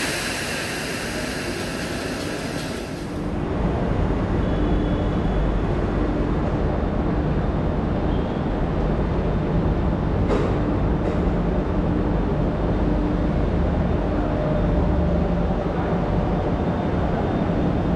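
Train running with a low rumble and a steady hum, getting louder about three and a half seconds in; a loud hiss fills the first three seconds and then cuts off.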